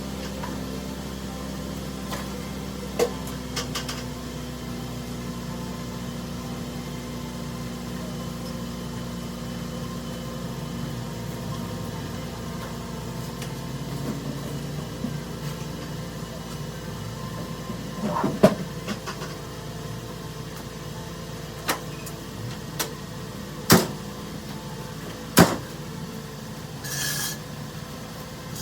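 A 2004 Honda Civic Si's four-cylinder engine running at a steady idle, with scattered sharp metallic clanks and knocks over it, the loudest a few in the second half, and a short hiss near the end.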